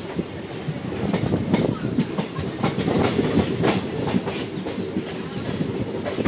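Moving passenger train heard from aboard the coach: steel wheels clattering rapidly and irregularly on the rails over a steady low rumble, getting louder about a second in.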